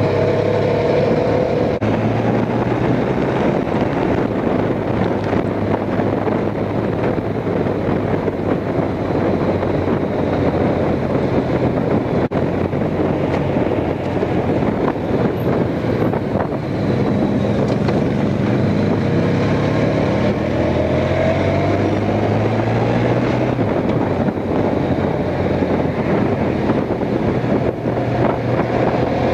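Honda Crosstourer's V4 engine running under way, its pitch rising and falling with the throttle, over steady wind noise on the microphone.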